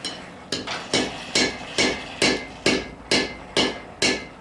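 Blacksmith's hand hammer striking the end of a hot steel rod stood upright on the anvil, about ten steady blows a little over two a second, each with a short metallic ring. This is upsetting: driving the hot end back into itself to make it thicker.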